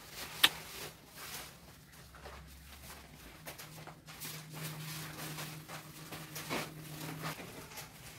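Paper sacks of block adhesive being handled and carried: scattered scuffs, rustles and footsteps, with one sharp knock about half a second in.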